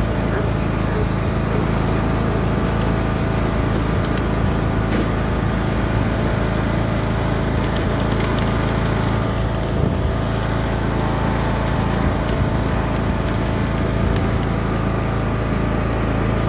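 John Deere riding lawn mower's engine running at a steady speed with a constant hum while the mower drives along.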